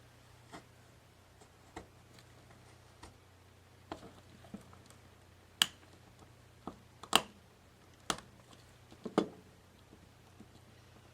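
Scattered light clicks and taps of a craft knife and a small foil-wrapped glass piece being handled on a work surface while the copper foil tape is trimmed, with a few sharper clicks in the second half.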